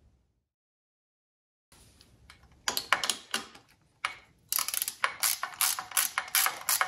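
Dead silence for about the first second and a half, then a ratchet wrench clicking in quick runs of about four or five clicks a second as the nuts of a motorcycle's coil mounting bracket are undone.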